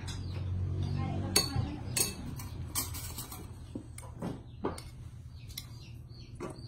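Spoons and a ladle clinking against ceramic and steel bowls as food is dished out, about ten sharp clinks at uneven intervals, with low voices in the background in the first second or so.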